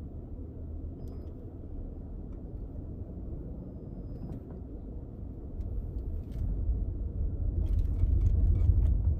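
Low rumble of a car heard from inside its cabin, creeping slowly in heavy traffic, growing louder about halfway through as the car gets moving.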